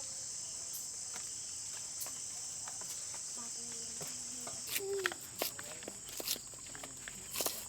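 Insects singing as a steady, high-pitched drone. Near the end there are a few sharp clicks and knocks over it.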